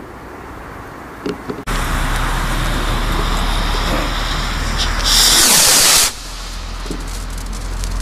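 A VSR2 40g shell firework rocket launching: its motor gives a loud hiss for about a second, starting about five seconds in and cutting off abruptly, over steady outdoor background noise.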